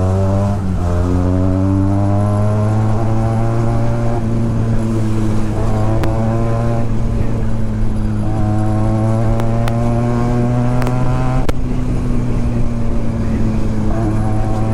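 Benelli TNT 300's parallel-twin engine with a loud exhaust, heard from the saddle while riding. The engine note climbs, dips at a gear change under a second in, climbs again, then holds a steady cruising drone.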